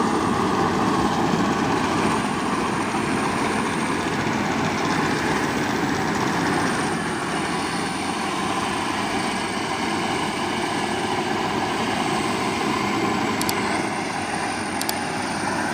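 Farm machinery running steadily, a continuous engine and machine drone with no change in pace.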